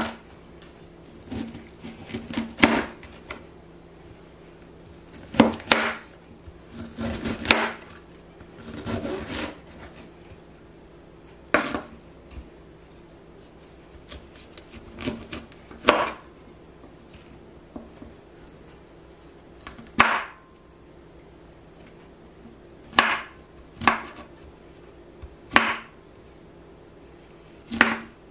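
Knife chopping broccoli on a wooden cutting board: sharp, irregular knocks of the blade against the wood, several close together in the first ten seconds, then single chops a few seconds apart.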